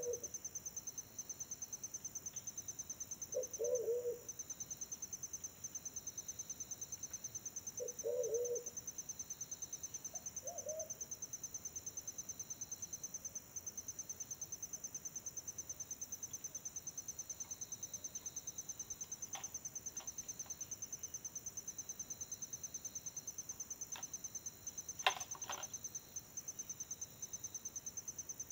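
Wild pigeon cooing: four low, short coos, one every few seconds in the first ten seconds, then silent. Behind them runs a continuous high, fast-pulsing insect trill, and a sharp click comes near the end.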